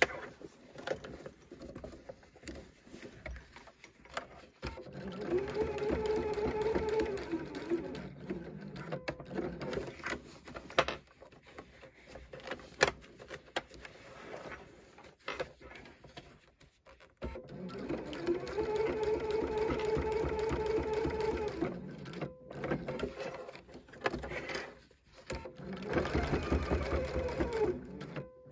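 Electric sewing machine stitching through the layered fabric of a backpack strap in three short runs, each speeding up at the start and slowing at the end, to sew a reinforcing square and X. Between the runs come clicks and rustling as the work is pivoted and turned.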